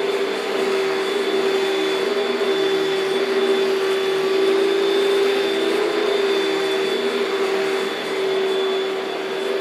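Panasonic Jet-Flo MC-6217 upright vacuum cleaner running steadily: a constant motor whine with a thin high whistle over a rush of air, the level swelling and dipping a little.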